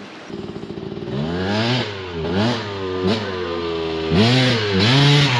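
ATV engine idling, then revved up and down in several quick throttle blips.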